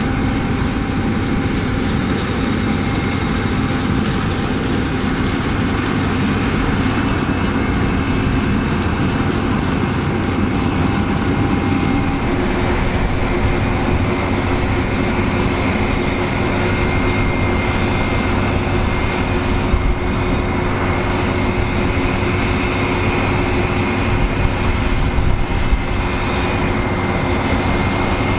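New Holland CR11 combine harvester running steadily while harvesting barley: a constant machine drone with a few steady whining tones laid over it. About twelve seconds in, one of the tones changes pitch.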